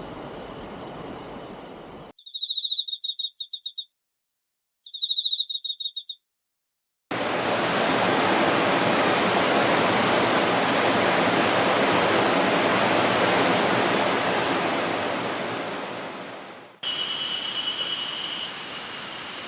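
Two short runs of rapid high chirps, each a little over a second long, then about ten seconds of loud, steady rushing river water that fades away near the end, followed by quieter outdoor ambience with a thin, steady high tone.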